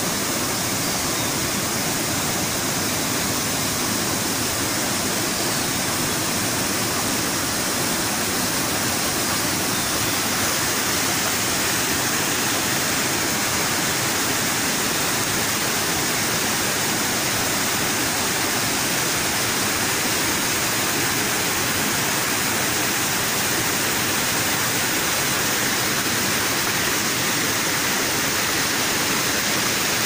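Hill river in flood after heavy rain, rushing over a rocky drop and through boulders: a steady, loud, unbroken rush of water.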